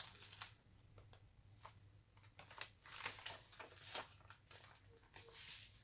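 Faint rustling and soft taps of a junk journal's paper pages and a small paper bag being handled and a page turned, over a low steady hum.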